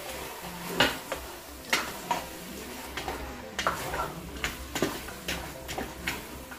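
A long cooking spoon stirring pasta in a stainless steel pot, knocking and scraping against the pot's side in irregular clicks about every half second.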